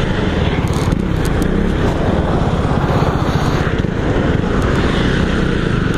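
Motorcycle engine running steadily at low speed, under a continuous rush of wind and passing freeway traffic.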